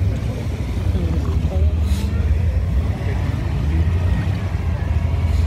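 Mitsubishi Pajero's engine running under load with a steady low rumble as the 4x4 crawls through deep mud, its tyres throwing up mud.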